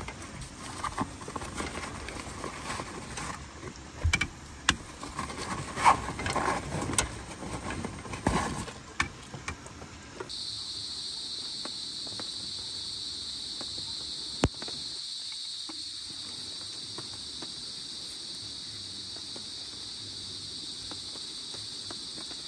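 Irregular knocks and clatter for about ten seconds. Then, after an abrupt change, a steady high-pitched drone of insects chirring, with a single sharp click a few seconds later.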